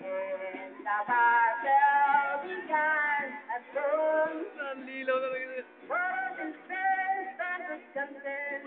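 Singing: a voice sings a melody in short phrases of held, wavering notes.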